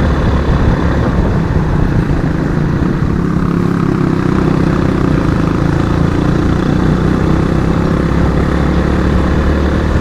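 Suzuki Raider 150 FI motorcycle's single-cylinder engine running steadily under way, a constant drone that holds an even pitch with only small changes in throttle.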